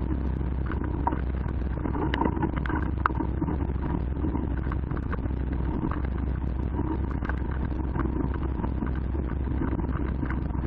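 Mountain bike rolling along a dirt and gravel track, heard from a camera mounted on the bike or rider: a steady rumble of tyres and wind with many small clicks and rattles from the bike.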